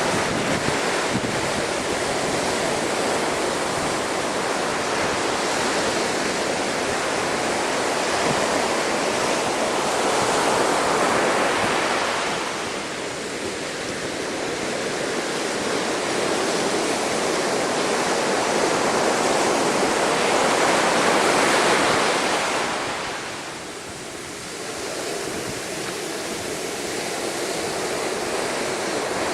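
Storm waves surging and breaking against a sea wall at high tide, a continuous rush of surf that swells twice, about a third of the way through and again a little past two-thirds, with wind buffeting the microphone.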